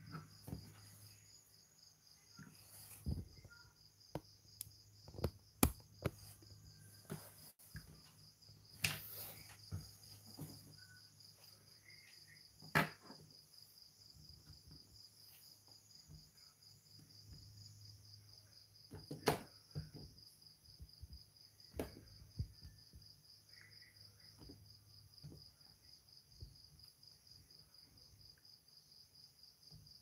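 Steady high-pitched insect chirring with a faint low hum beneath, broken by scattered light clicks and taps from hand work at a wooden table.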